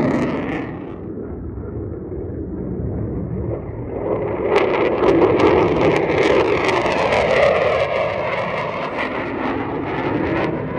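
F-16 fighter jet engine noise from jets climbing out after takeoff. The roar fades to a duller rumble about a second in, then swells again from about four seconds into a loud, crackling roar.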